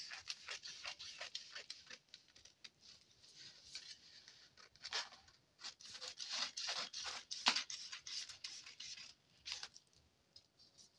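Scissors cutting through paper along a drawn pattern line. A quick, even run of snips at first, a lull, then louder, more scattered snips with paper rustling in the middle.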